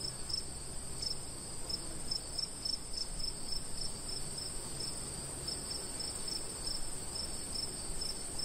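Night-calling insects: one holds a steady, very high-pitched trill while another chirps in a regular rhythm, about three chirps a second.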